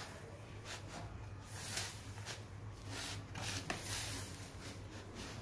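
A hand mixing and squeezing wet chapati dough in a plastic bowl: soft, irregular squishing and rubbing sounds, with a steady low hum beneath.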